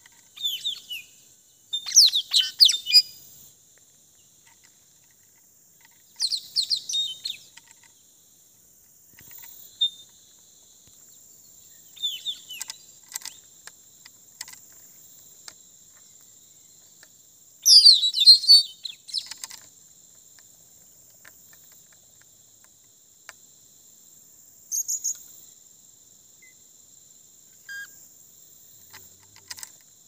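Small wild parrots giving shrill, high chirping calls in short bursts every few seconds, loudest about two seconds in and again around eighteen seconds. A steady high insect drone runs underneath.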